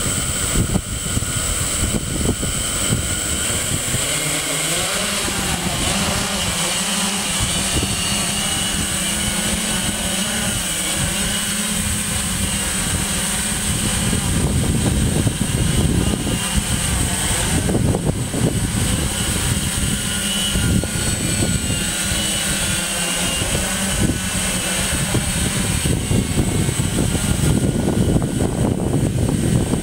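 DroidWorx octocopter's eight electric motors and propellers buzzing with a high whine, rising in pitch in the first few seconds as it lifts off, then holding steady while it hovers.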